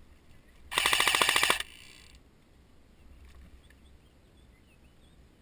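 Airsoft electric rifle firing one full-auto burst of just under a second, a rapid even clatter of about fifteen shots a second, starting about a second in.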